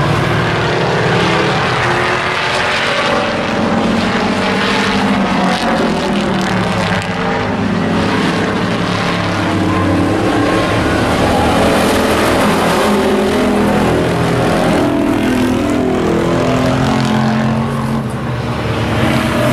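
Race pickup trucks' engines running loud and steady on the oval track. Several engines overlap, their pitch rising and falling as the trucks lift and accelerate through the corners.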